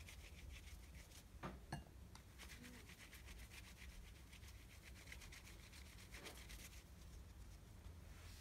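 Faint, rapid rubbing and rustling of hands pulling apart clumps of damp paper-towel bedding on a terry towel, with two soft knocks about a second and a half in.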